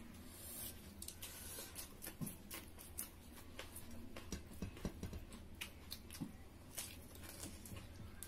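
Several people chewing and smacking their lips while eating pork curry and rice with their fingers: irregular small wet clicks and smacks. A low steady hum runs underneath.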